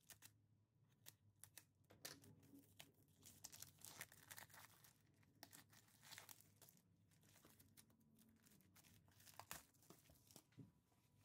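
Faint crinkling and tearing of a clear cellophane bag as it is cut open with scissors and pulled apart by hand. Irregular crackles cluster from about two to six seconds in and again near the end.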